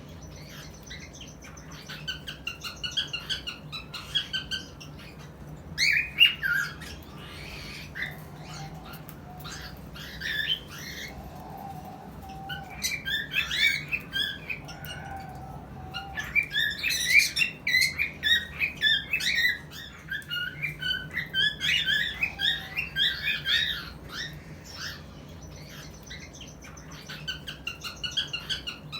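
Cockatiels chirping and whistling in repeated bouts of quick, high chirpy notes, with short lulls between bouts.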